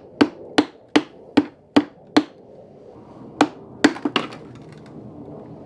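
Hammer tapping on a furnace coil plate to break it free along its score line: six quick, even, sharp taps, then after a pause a short cluster of a few more.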